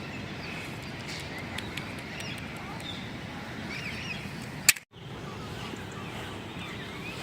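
Small birds chirping over a steady outdoor background hiss. About two-thirds of the way through, a sharp click is followed by a split-second dropout to silence, like an edit cut.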